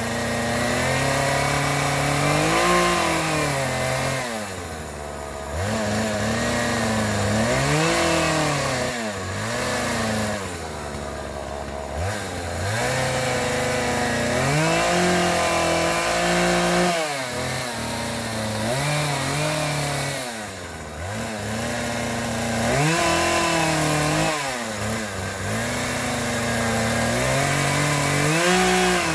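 Gas chainsaw engine revving up and down again and again, its pitch climbing and dropping every few seconds.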